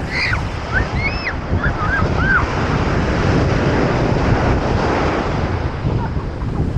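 Ocean surf washing on the beach, swelling midway, with wind buffeting the microphone. A few short high-pitched calls sound over it in the first two seconds or so.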